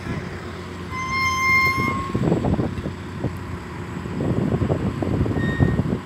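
A single high, steady signal toot lasting about a second, starting about a second in, with a fainter, shorter tone near the end. Underneath, wind buffets the microphone over a low machinery rumble.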